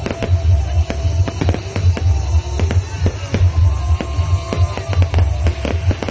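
Fireworks going off in quick succession, with many sharp bangs and crackles, over loud music with a heavy pulsing bass.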